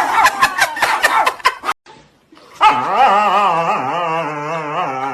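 A dog howls one long, wavering note starting about halfway through. Before it there are brief voices and clatter, then a short pause.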